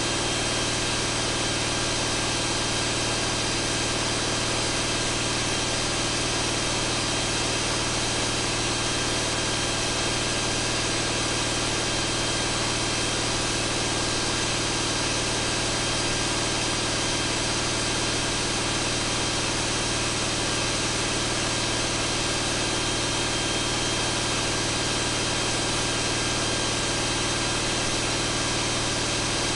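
John Deere 8.1L turbocharged inline-six marine diesel running steadily at full load on a dynamometer, held at about 2300 rpm. It is a loud, constant engine sound that does not change in pitch or level.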